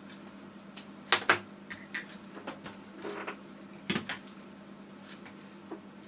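Scattered plastic clicks and knocks from handling a smoke detector and its mounting base, the two loudest clicks coming close together about a second in, with a brief rustle in between later ones.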